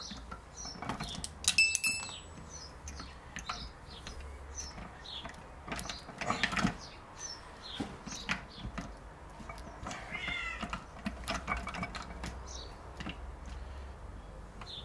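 Clicks and metal clinks as gear shaft assemblies and shift forks are worked loose inside the open casing of a Peugeot BE4 gearbox, with one sharp clink that rings briefly a little under two seconds in.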